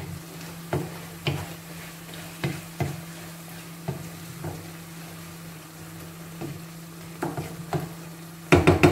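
A spoon stirring chicken-and-potato meat pie filling in a pot as flour is mixed in to thicken it: scattered knocks and scrapes of the spoon against the pot, with a louder clatter near the end, over a steady low hum.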